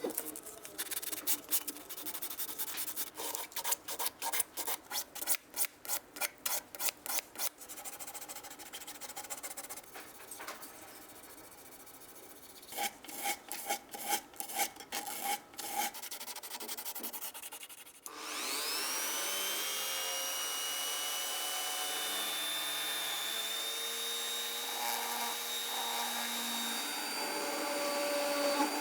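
Rhythmic abrasive rubbing strokes, about two or three a second, with a quieter stretch in the middle. About two-thirds of the way in, a small electric tool spins up with a rising whine and then runs steadily.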